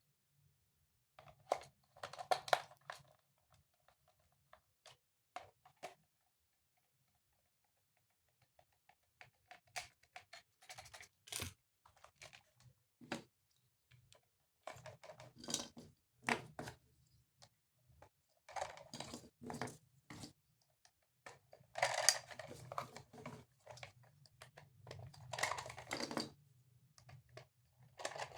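Plastic toys and packaging being handled: irregular clicks, taps and scratchy rustles, coming in clusters with short pauses between them.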